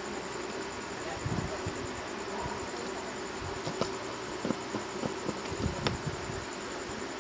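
A steady electrical buzz with a faint high whine over it, and light clicks and taps of small tools on a phone circuit board during soldering.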